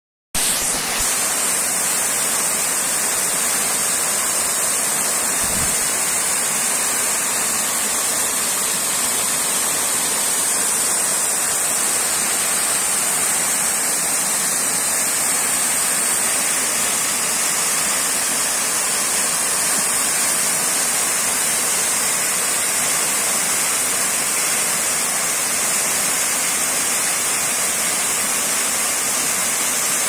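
Small waterfall splashing into a shallow pool: a steady, unchanging rush of falling water with a bright hiss on top.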